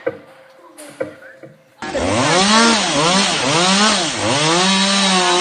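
Chainsaw engine starting abruptly about two seconds in and running loud, its pitch rising and falling over and over, a little more than once a second, as the throttle is worked. Before it there are a couple of light knocks.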